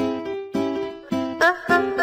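Background music played on a plucked string instrument, with a new note struck about every half second and each one ringing and fading.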